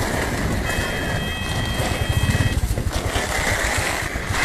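Road and wind noise from a moving vehicle, a steady rumble. A set of high steady tones sounds for about two seconds early in the stretch and then stops.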